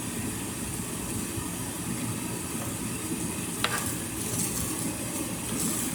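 Steady background hum and hiss, with one sharp click about three and a half seconds in and light rustling near the end.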